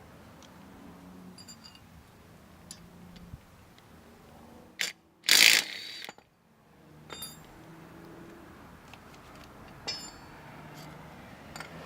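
Hand tools working the sway bar link pin bolts: a socket ratchet clicking and spanners clinking on metal. There is a brief loud burst of noise about five seconds in.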